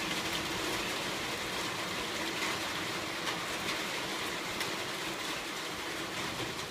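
Thunderstorm rain falling steadily, an even hiss with a few scattered drops ticking louder.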